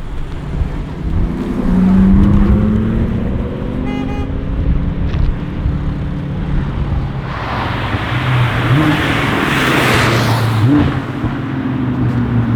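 Audi RS6 C7's twin-turbo V8 through an Akrapovic exhaust, rising in pitch as it accelerates over the first few seconds, then running on at a steadier pitch. A broad rush of noise swells and fades between about seven and eleven seconds in.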